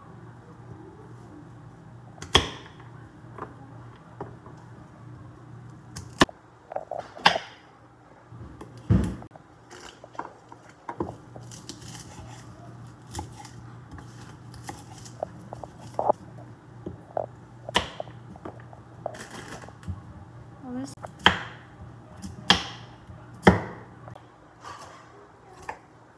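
Kitchen knife chopping baby carrots and lettuce on a wooden cutting board: irregular sharp knocks of the blade striking the board, about a dozen spread through, over a low steady hum.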